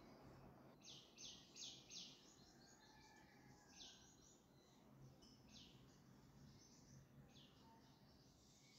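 Near-silent room tone with faint, short bird chirps in the background: a quick cluster of three about a second in, then single chirps every second or two.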